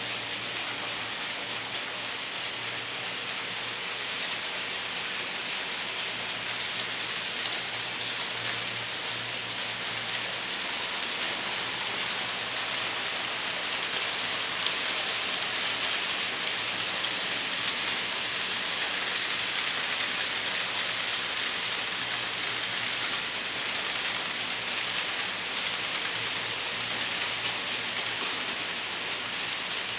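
Model trains running on the layout's track: a steady rattling hiss of small metal wheels on rails, with a faint low hum underneath.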